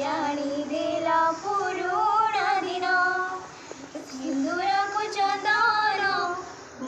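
A girl's voice singing a slow melody in long held notes, breaking off briefly about halfway through before going on.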